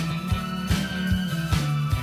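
Music with a steady drum beat over a sustained bass line.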